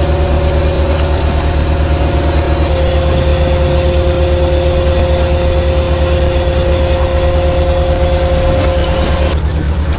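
An engine running steadily: a low pulsing rumble with a steady whine above it that stops about nine seconds in.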